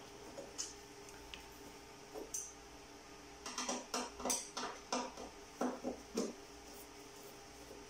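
Screwdriver working the screws on a video processor's metal casing: a run of quick metallic clicks and scrapes between about three and a half and six seconds in, with a few lone clicks before, over a faint steady hum.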